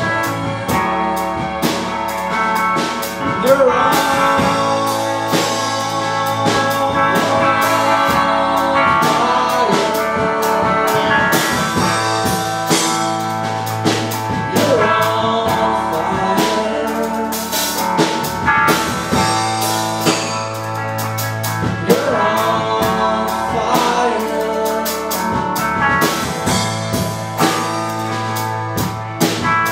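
A live rock band playing: drum kit, semi-hollow electric guitar, bass guitar and keyboard, with a singer's voice over them in phrases.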